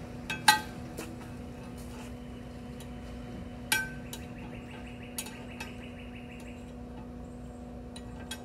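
Steel hinge and plate clinking and ringing against a steel welding table as they are set in place for welding: a sharp clank about half a second in, another near the middle, and a few lighter taps, over a steady low hum.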